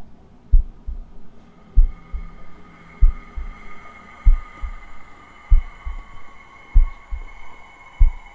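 Heartbeat sound effect: slow paired low thumps, seven double beats about a second and a quarter apart, over a steady high ringing tone.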